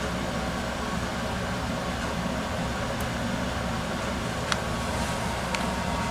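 Steady low electrical hum with a constant hiss, broken by a sharp click about four and a half seconds in and a smaller click about a second later.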